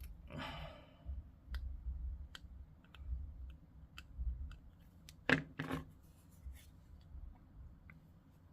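Sprue cutters clipping small plastic miniature parts off a sprue: scattered light clicks, with two sharp snips close together a little past five seconds.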